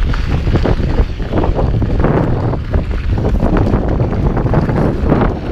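Heavy wind buffeting the microphone: a loud, continuous rumble broken by irregular knocks and rattles.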